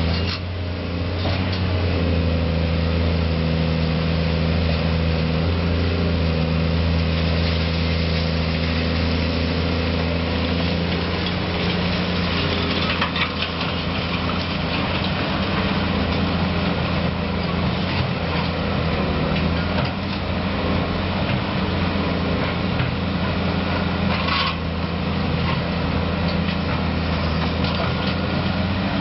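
Caterpillar 330C excavator's diesel engine running steadily under working load as it swings and digs. A couple of brief clattering knocks come as rubble is dumped from the bucket into a dump truck's bed.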